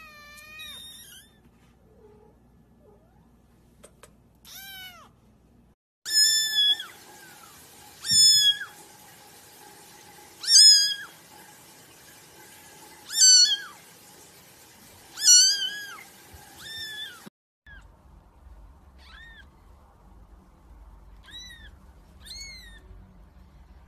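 Kittens mewing: short, high-pitched mews repeated about every two seconds, loudest in the middle run, with fainter tiny mews from a newborn-sized kitten near the end.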